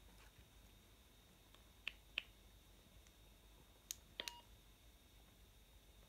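Handheld transceiver's buttons being pressed to change the power setting: a few sharp clicks about two and four seconds in, with a short key beep near four seconds, over near silence.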